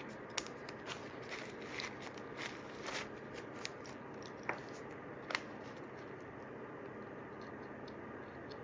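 Small clicks and short scrapes of hand work on a metal belt buckle, about a dozen in the first five seconds and then only a steady hiss.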